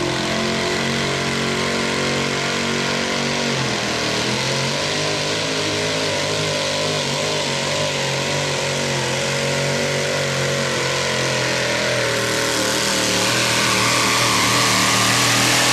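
Engine of a Chevy-bodied modified four-wheel-drive pulling truck running at full throttle during a sled pull. A steady high note at first, a sharp pitch dip about four seconds in, then a wavering, hard-working note that grows louder near the end.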